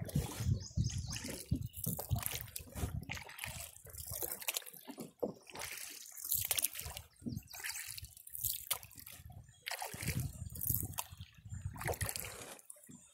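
Canoe paddles dipping and pulling through calm river water, with water splashing, trickling and dripping off the blades in an irregular run of strokes.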